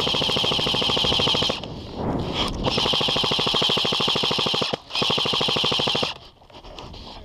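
Airsoft rifle firing on full auto in three long bursts of rapid, evenly spaced shots with a steady high whine, the second two split only by a brief break.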